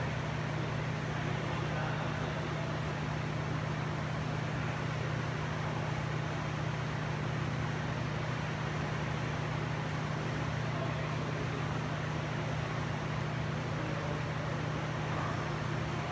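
Steady low mechanical hum with an even hiss over it, unchanging throughout, with no distinct knocks from the kettlebell.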